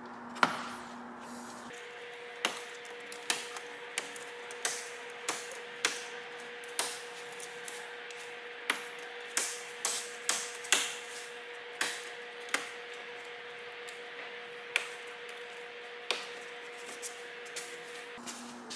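Plastic trim clips and the plastic radiator-support cover snapping and tapping into place under hand pressure: a string of sharp clicks, roughly one a second and irregularly spaced, over a faint steady hum.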